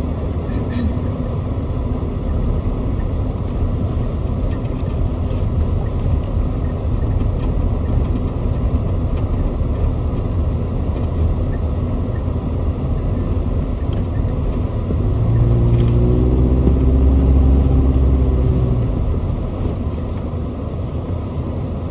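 Side-by-side UTV driving on a rough dirt trail: its engine running steadily under the rumble of tyres and chassis over the uneven ground. About three-quarters of the way in, the engine pulls harder and louder for a few seconds, then eases off again.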